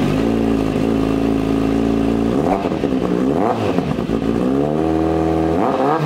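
Kawasaki Z900 inline-four engine idling through an aftermarket slip-on muffler held by hand on the link pipe, blipped twice about two and a half and three and a half seconds in, with revs rising again near the end. This is an exhaust sound test of the silencer.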